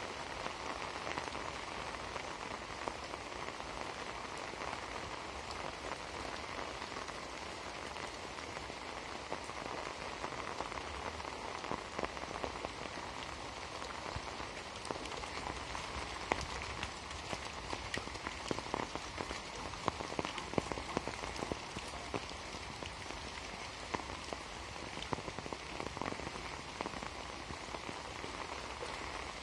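Rain falling steadily, with sharp drop taps that grow more frequent in the second half.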